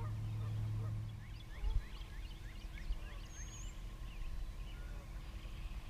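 Faint outdoor animal chorus: many short, overlapping rising chirps, with one higher whistle near the middle. A low hum fades out about a second in, and a single thump comes just under two seconds in.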